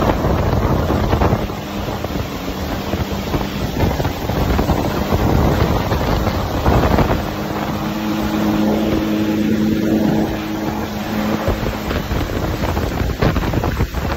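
Jet ski running at speed while towing a tube, its steady engine hum under the rush of wake and spray, with wind buffeting the microphone. The engine note grows stronger for a few seconds past the middle.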